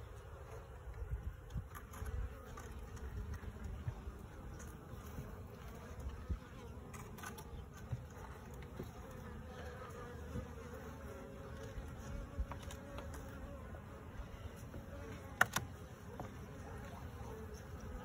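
Honeybees buzzing around an open top-bar barrel hive: a steady hum that wavers slightly in pitch. A few knocks and clicks come from the wooden top bars being worked with a hive tool, the sharpest about fifteen seconds in.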